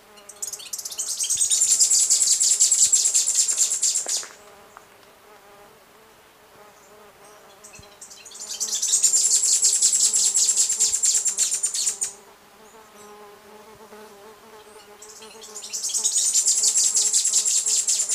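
Western hemispingus (Sphenopsis ochracea) singing: three high, rapid trills of about four seconds each, a few seconds apart. Each trill swells in at the start, then holds steady until it stops abruptly.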